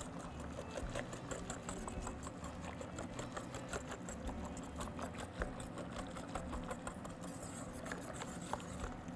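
Faint rapid clicking and scraping of a utensil stirring a thickening soup in a cooking pot, over a low steady hum.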